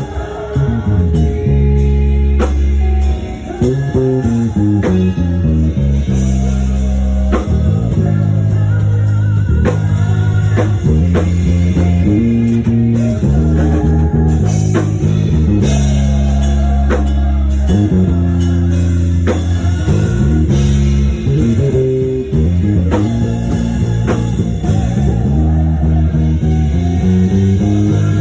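Praise band music: a bass guitar plays strong, shifting bass notes under electric guitar and a drum kit keeping a steady beat.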